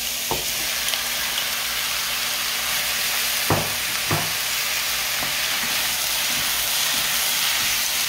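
Blanched squid, onion and carrot sizzling as they are stir-fried in oil over high heat in a pan, a steady frying hiss. A few knocks against the pan come as the food is stirred, the loudest about three and a half seconds in.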